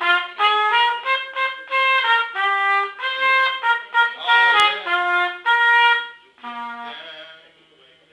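A trumpet playing a practice phrase of short and held notes. It stops about six seconds in, and a few softer, lower notes follow and fade away.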